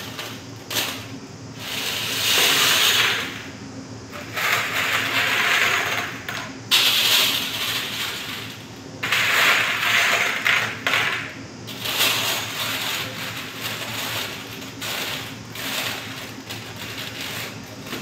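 Aluminium foil crinkling and rustling on a metal tray in repeated bursts a second or two long, over a faint steady low hum.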